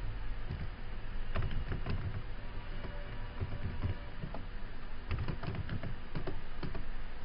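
Computer keyboard typing: irregular keystrokes in short runs, over a steady low hum.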